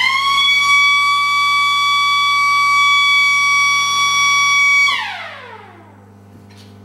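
Small red electric motor siren, the cheap engine-alarm type for over-temperature or low oil pressure, sounding. It winds up quickly to a loud steady wail, holds it for about five seconds, then is switched off and winds down in falling pitch. A steady low hum from a power pack runs underneath.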